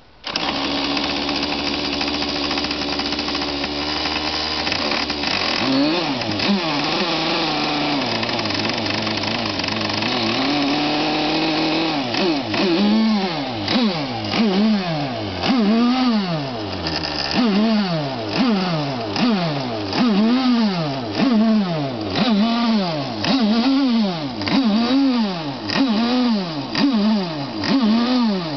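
FSR-V Tornado EVO 5 small model engine running, starting abruptly and holding a fairly steady note at first, then revving up and down about once a second in a repeated surge. It has carburetion (carburettor tuning) problems.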